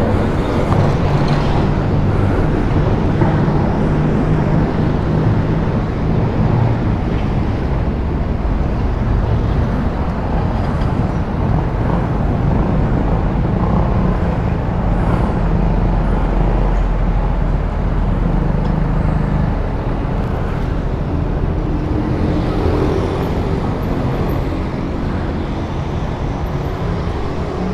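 Steady road traffic noise, with a low hum of vehicle engines running under it.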